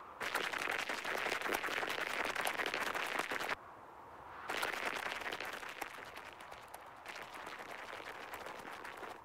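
Rapid tiny footsteps crunching on snow, the sound effect of an ant scurrying while it carries a pine cone. It comes in two runs: the first stops abruptly about three and a half seconds in, and the second starts about a second later and grows softer toward the end.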